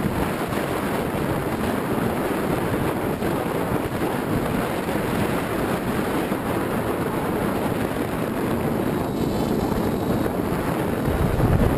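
Steady rushing of wind and airflow over the microphone of a camera mounted on a flying Easy Star II RC model plane.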